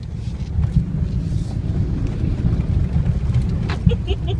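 Mitsubishi L200 pickup's diesel engine pulling the truck through a knee-deep river, a heavy uneven rumble with water washing around it and a few sharp thumps.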